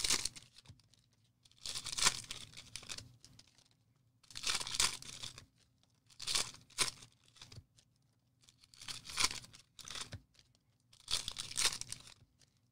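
Trading card pack wrappers being torn open by hand, five separate rips a couple of seconds apart, with crinkling.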